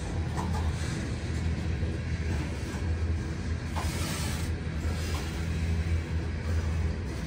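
CN freight train rolling past: a steady low rumble of wheels on rails, with a few faint short squeaks.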